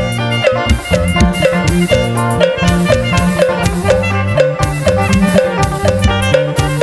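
Music with a steady drum beat and a melodic lead, in the style of Thai rot hae parade-truck music, played from a sample pack on an Avatar PD-705 electronic percussion pad.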